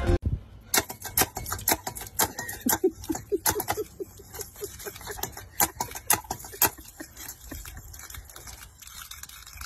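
A dog drinking from the water jet of a paw-pedal dog water fountain: an irregular run of wet clicks and splashes, about two or three a second, thinning out near the end.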